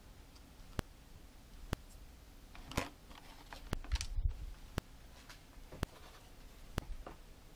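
Plastic toy figures and a cardboard package being handled on a tabletop, with rustling and a few light knocks about three and four seconds in. A faint, regular tick sounds about once a second throughout.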